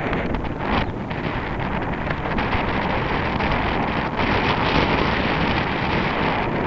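Steady wind noise rushing over a camera's microphone while cycling, the mic's pinhole taped over to cut the wind.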